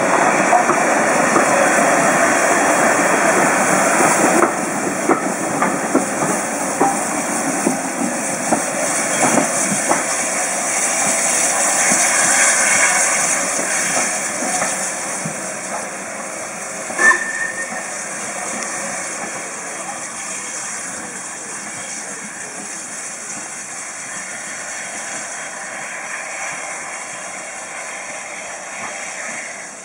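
LMS Ivatt Class 4MT 2-6-0 steam locomotive 43106 pulling away with its train: steam hissing and working noise, loud at first and then fading as the train draws away. About halfway through there is one brief sharp sound.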